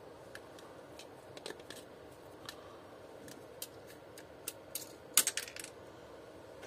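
Needle-nose pliers clicking and tapping against a plastic vacuum-cleaner part: scattered light clicks, with a louder quick run of clicks about five seconds in.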